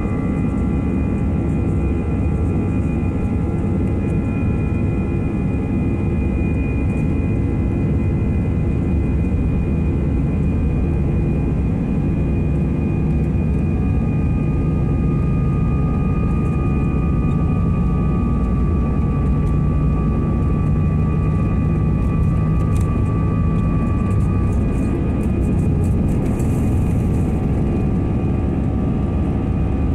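Airbus A319 jet engines at takeoff thrust, heard inside the cabin through the takeoff roll and lift-off: a loud, steady rush with several steady whining tones over it.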